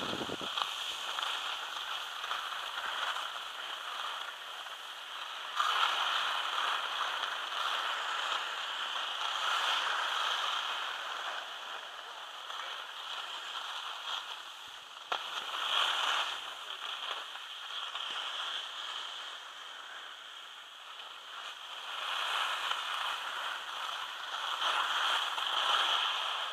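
Skis scraping and hissing over packed snow, swelling and easing with each turn, with one short click about fifteen seconds in.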